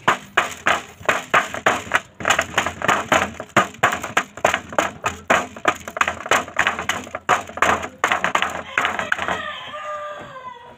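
Fighting rooster's beak pecking rice off a metal basin: fast sharp taps, about three to four a second. Near the end the pecking stops and a rooster gives a drawn-out call that falls in pitch.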